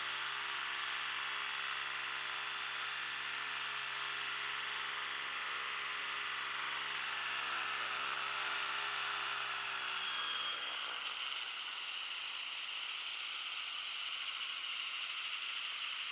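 Electric-converted RC tandem-rotor helicopter, driven by an Aveox 40 brushless motor, running with a steady whir of motor and rotors while hovering. The whir dies away about ten seconds in, leaving a steady hiss.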